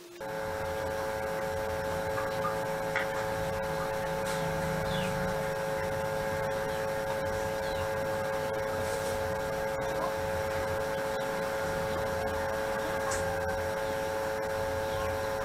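Steady electrical hum with a high whine over a hiss, starting suddenly and holding even, with a few faint clicks.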